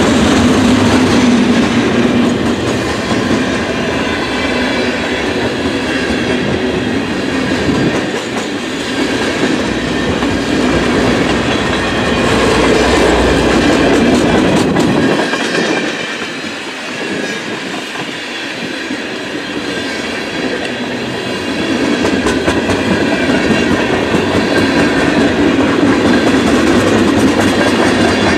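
A long freight train's cars rolling past, a steady wheel-on-rail clatter and rumble that eases for a few seconds around the middle.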